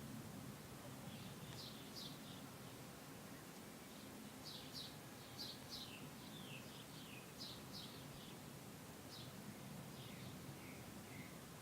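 Faint outdoor ambience: small birds chirping in the background, short high notes that slide downward, in loose runs, over a low steady hum.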